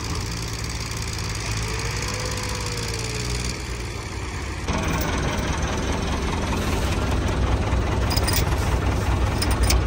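Diesel tractor engines idling steadily. About five seconds in, a closer tractor engine takes over, louder and with a heavy low hum, and a few sharp clicks come near the end.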